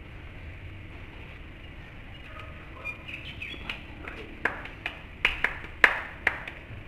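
Irregular sharp slaps, a few at first and then more often, the loudest about six seconds in, with a few faint chirps just before them.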